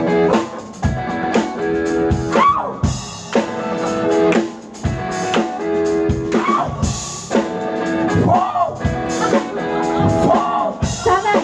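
A live rock band playing, with electric guitar and a drum kit, and a lead singer's voice over the music.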